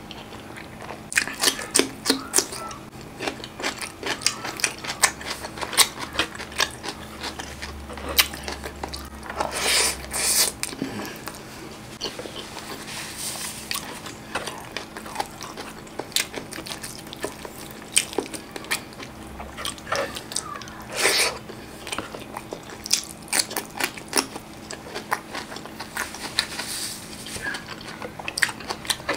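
Close-miked eating of saucy chicken by hand: wet chewing, lip smacks and mouth clicks in a steady irregular run, with a few longer, louder smacking stretches.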